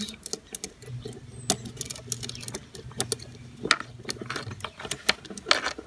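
Scattered light metallic clicks and taps from a scooter's throttle cable end and its small nuts being handled at the carburetor linkage, over a faint low hum.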